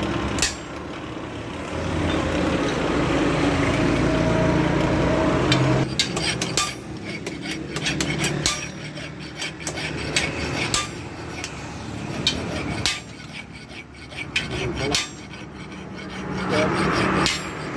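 An axe being sharpened: rasping, rubbing metal for the first several seconds, then scattered sharp clicks and knocks of metal on metal.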